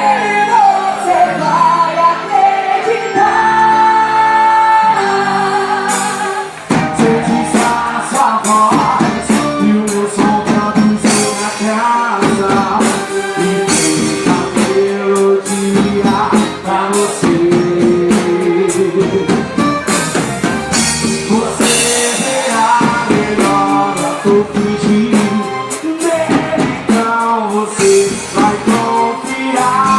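Music for a quadrilha junina dance: a song with a singer, lighter at first, with drums and percussion coming in about six seconds in and keeping a steady beat.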